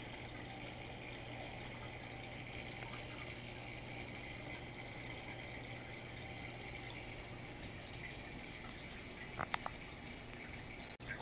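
Aquarium air bubbles and filter running steadily, a constant bubbling wash over a steady low hum. A few short clicks come about nine and a half seconds in.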